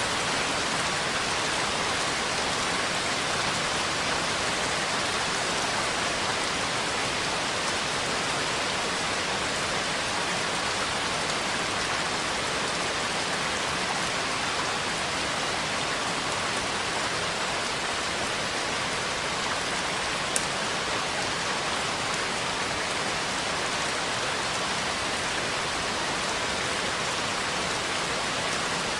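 Steady, even rain falling, a constant dense hiss without thunder. A single sharp tick sounds about two-thirds of the way through.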